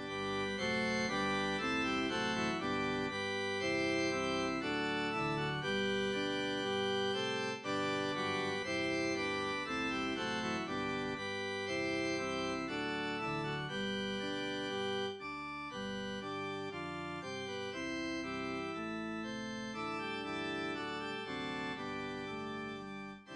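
Organ music: sustained chords with the notes changing every half second or so, cutting off abruptly at the end.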